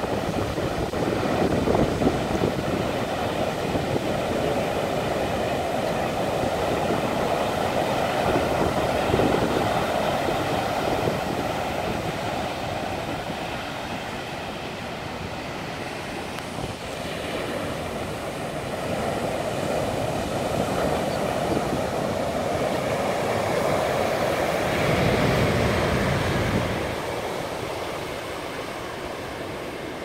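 Heavy surf in rough seas: big waves breaking and washing up the beach in a continuous rush of noise that swells louder twice and eases off near the end.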